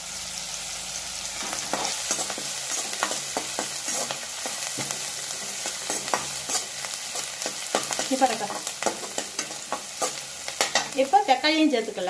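Chopped onions and green chillies sizzling as they fry in oil in a kadai. A perforated steel skimmer ladle stirs them, scraping and clicking against the pan over and over.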